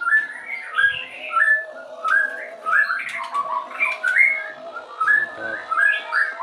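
Caged birds calling: a quick run of short, rising whistled chirps, about three a second, over a lower wavering tone.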